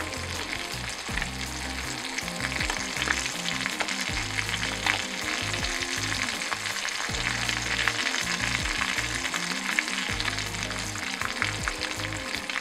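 Battered smelt deep-frying in a shallow pan of hot oil, sizzling steadily with a dense crackle of many small pops. A fork stirs and turns the fish in the oil.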